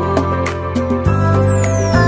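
Background music: sustained synth-like notes over a steady beat, with a high sweep gliding downward from about halfway through.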